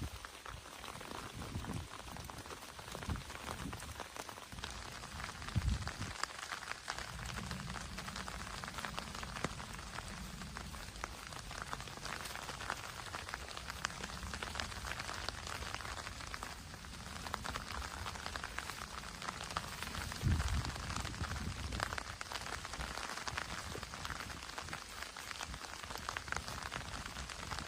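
Heavy rain falling steadily as a dense patter of drops, with two dull low thumps, one about six seconds in and another about twenty seconds in.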